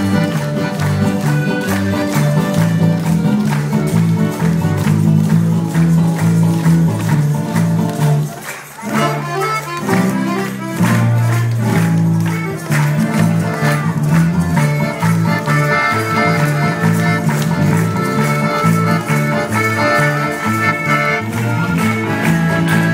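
Live accordion, guitars and tambourines playing a lively paso doble, with steady tambourine shaking and strikes throughout. The music breaks off briefly about eight and a half seconds in, then comes back in.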